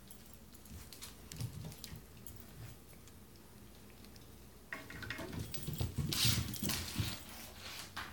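Two cats play-fighting on a wooden floor: scattered light taps and thumps at first, then, about five seconds in, a louder burst of scuffling, with paws scrabbling and bodies thumping on the floor for a few seconds before it dies down.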